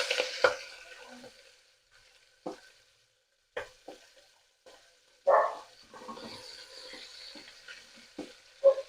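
Chopped onion and chillies frying in butter and spices in a pan. The sizzle fades over the first second or so, then a spatula knocks against the pan every second or two, the loudest knock about five seconds in, with a faint sizzle coming back in the second half.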